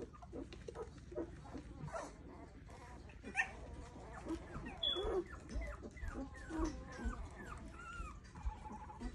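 Two-week-old rough collie puppies whimpering and squeaking. The calls are sparse at first, then from about three seconds in come many short, overlapping high cries, rising and falling in pitch, with one longer call near the end.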